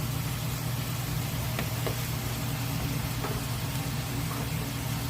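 Steady low mechanical hum of kitchen equipment, with a few faint light clicks spread through it.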